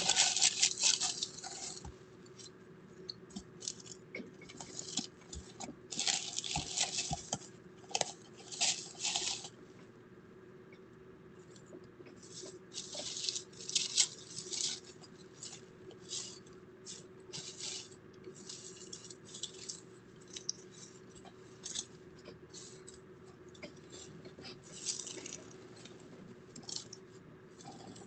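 Rustling of a waterproof sheet and bedding in irregular short bursts, over a steady low hum.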